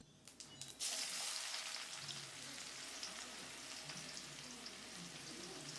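Food frying in a pan: a steady sizzle and crackle that starts about a second in.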